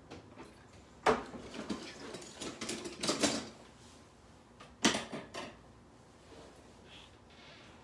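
A few sharp knocks and clatters of kitchen things being picked up and set down. The loudest come about a second in and just before five seconds, with a busier stretch of rattling around three seconds.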